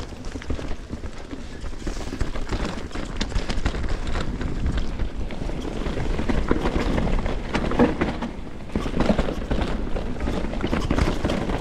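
Canyon Strive enduro mountain bike running fast down a rough trail: a constant clatter of tyre, chain and frame knocks and rattles over a low wind rumble on the camera mic.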